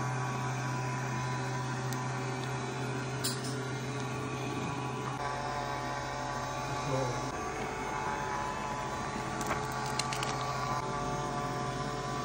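Robot vacuum-mop cleaner running across a hard floor: a steady motor hum and whirr from its suction fan and brushes, with a few light clicks.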